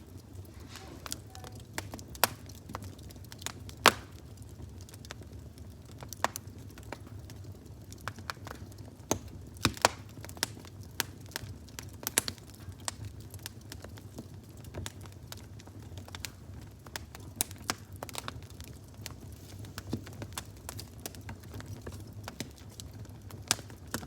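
Fire crackling: irregular sharp snaps and pops, a few loud ones, over a steady low rumble.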